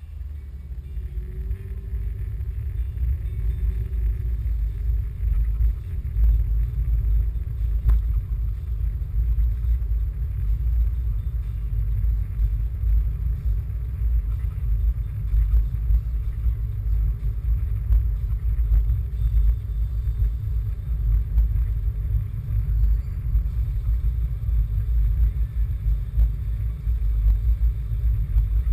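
Car driving, heard from inside the cabin: a heavy, fluctuating low rumble of road and engine noise. It grows louder over the first few seconds, with the engine note rising.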